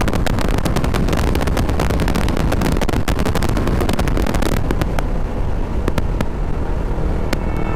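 TVS Apache RR310 motorcycle riding at highway speed: steady engine and road noise under heavy wind buffeting that crackles on the action camera's microphone. The hiss in the highs drops away about five seconds in.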